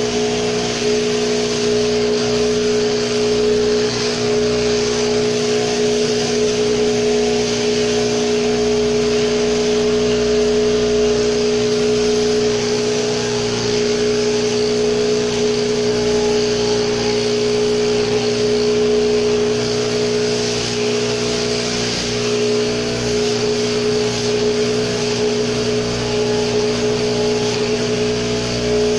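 Sheep-shearing handpiece driven from an overhead shearing plant through a drop tube, running steadily with an even mechanical whine as its comb and cutter clip the dags and crutch wool from a lamb.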